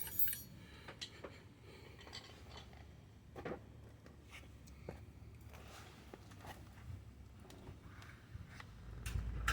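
Faint, scattered clicks and light knocks of brake parts and tools being handled during a rear brake job, over a low steady hum.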